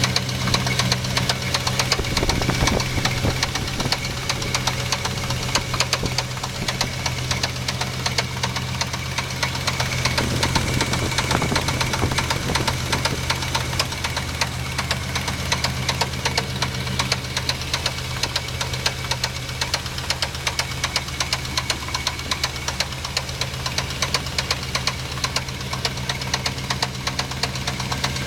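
1987 Chevrolet C10 pickup engine running at a steady speed with a rapid, regular knock. The knock is loudest on the driver's side around the exhaust header, where smoke later appeared.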